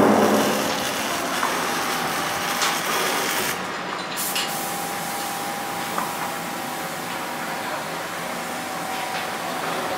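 Steady mechanical background noise with a constant hum, broken by a few light knocks.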